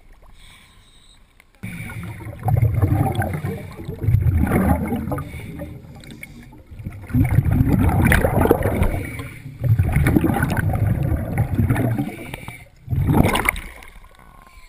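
Scuba diver's exhaled air bubbling out of the regulator, heard underwater: loud bubbling rumbles, four long ones and a short one near the end, coming every two to three seconds with quieter gaps between breaths.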